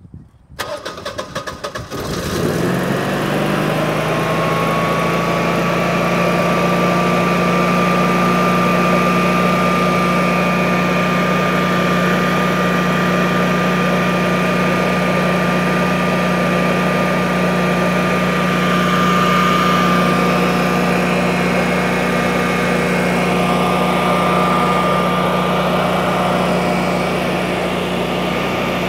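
Honeywell-branded Generac whole-house standby generator's two-cylinder engine cranked by its electric starter. It catches about two seconds in, its pitch rising and settling over the next couple of seconds, then runs steadily. It is being run right after an oil change to circulate the fresh oil.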